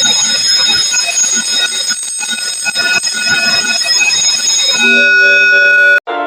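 Alarm bell ringing continuously with a bright, metallic ring. Near the end it gives way to a steady held multi-note alarm tone, which cuts off abruptly.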